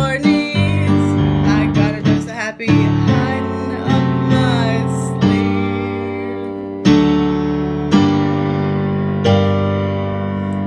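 A woman singing over keyboard piano chords, her voice dropping out after about three seconds; the song then closes on four slow chords, each struck and left to ring and fade.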